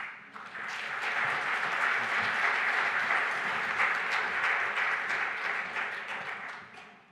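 Audience applauding: the clapping builds over the first second, holds steady, then dies away near the end.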